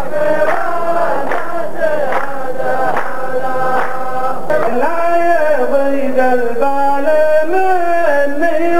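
A row of men chanting a qalta verse in unison, clapping in time about once a second. About halfway through, the claps stop and the chant goes on in long held notes that step up and down in pitch.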